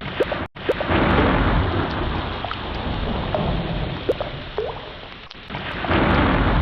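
Heavy rain falling with a low rumble of thunder that swells about a second in and again near the end, with water drops plinking through it. The sound cuts out for an instant about half a second in.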